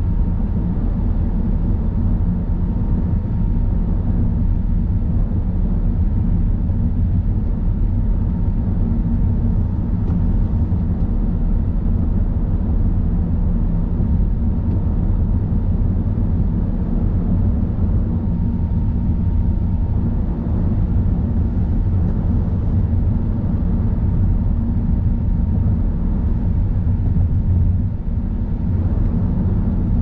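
A car driving at steady speed: a constant low rumble of tyres and engine, with a faint steady whine for roughly the first twenty seconds.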